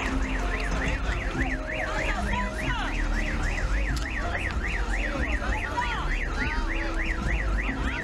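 Electronic siren or alarm tone warbling rapidly up and down, about four sweeps a second, over a low rumble.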